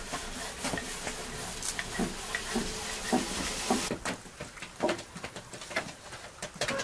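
Light knocks, taps and soft thumps of lavash dough being worked by hand: a thin wooden rolling pin on a wooden board and a dough sheet slapped and stretched between the hands, with a run of thumps about two a second in the middle.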